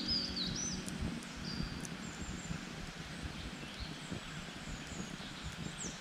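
Small campfire crackling with scattered sharp pops over a soft hiss. Birds chirp in short high notes, mostly in the first second and again near the end.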